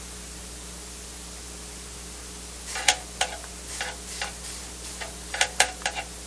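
A steady low electrical hum, then from about three seconds in a string of short irregular clicks and crackles from handling the camera's circuit board and tools at a soldering bench.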